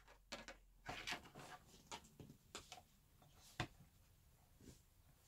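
Faint, scattered small taps and rustles, about a dozen short ones: hands handling air-drying clay and tools on a desk.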